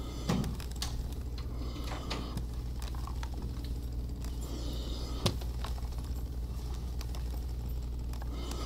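Light handling sounds of cotton quilt pieces and a steam iron on a wool pressing mat: small rustles and clicks, with two sharper knocks, one just after the start and one about five seconds in, over a steady low hum.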